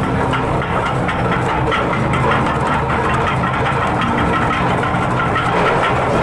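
Ship's mooring winch machinery running with a steady mechanical drone while the crewman works its controls.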